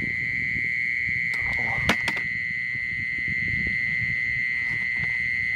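Insect trilling in one unbroken high tone, over low rustling of steps and handling through grass, with a sharp click about two seconds in.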